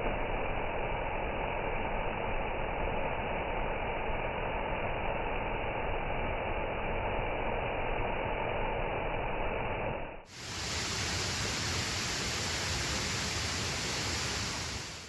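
Cascata delle Marmore waterfall: water rushing and pouring steadily. About ten seconds in the sound dips briefly and comes back brighter and hissier.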